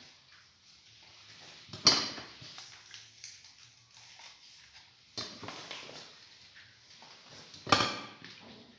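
Craft materials and a tool being handled on a table: two sharp knocks about six seconds apart, a softer one between them, and faint handling noise.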